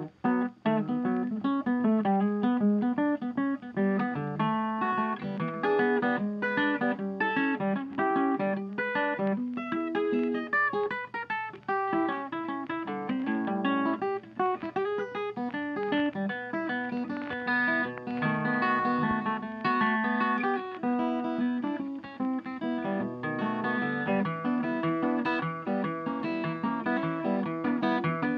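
Background music: a plucked guitar plays a busy run of picked notes throughout.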